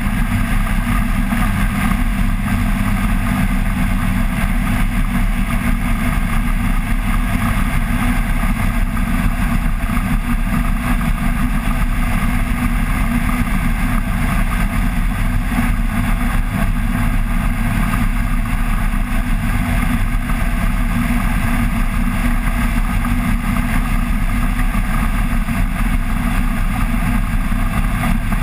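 Flex-wing microlight trike in level flight: its rear-mounted pusher engine and propeller drone at a steady, unchanging pitch, mixed with rushing airflow.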